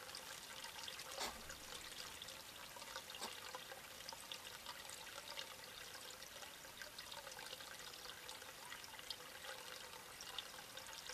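Faint, steady trickle of running water, with scattered small clicks over it.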